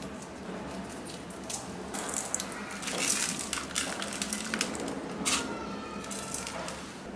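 Coarse salt being scattered by hand over raw fish steaks in a bowl: a run of small irregular clicks and hisses as the crystals land, with the hand brushing the fish. It is loudest about three seconds in.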